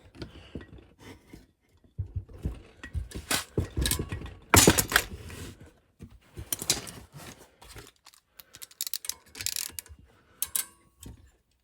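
Ratchet and socket clicking, with metal tools knocking against the engine, while someone works at a tight cylinder head bolt on a small mower engine. The clicks and knocks come irregularly, and the loudest knock is about four and a half seconds in.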